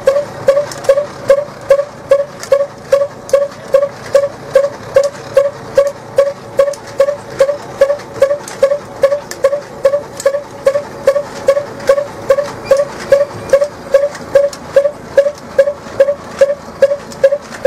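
Chaff cutter (fodder-cutting machine) running, with a short squealing note repeating steadily about two and a half times a second.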